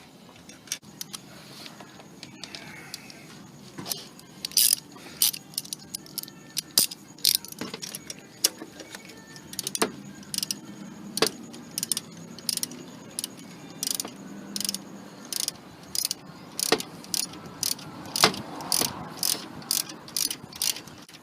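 Irregular sharp clicks and small metallic clinks of hands and tools working in a car's engine bay, fitting a wiring-harness clamp back on near the alternator, over a faint low hum.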